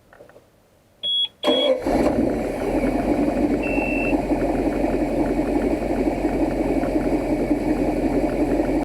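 A boat's sterndrive engine is started: two short high beeps, then it cranks and catches about a second and a half in and settles into a steady run, with another brief beep a couple of seconds later.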